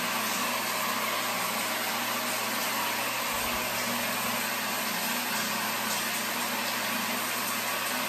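A steady rushing noise with a low hum underneath, unchanging in level.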